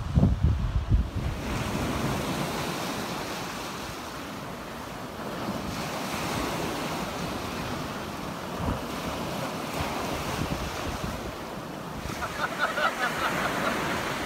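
Sea waves breaking and washing onto a beach, with wind buffeting the microphone for the first second or so.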